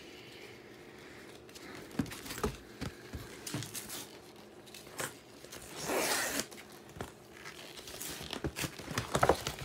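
Shipping packaging being torn open and handled: scattered rustles and clicks, a longer tearing sound about six seconds in, and a run of crinkling crackles near the end.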